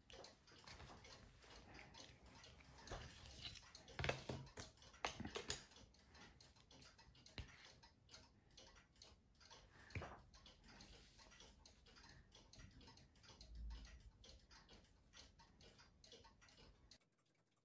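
Quiet handling sounds of gluing the covering onto a cuckoo clock's wooden bellows: a few light knocks, loudest about four to five seconds in and again near ten seconds, over a faint, even, rapid ticking.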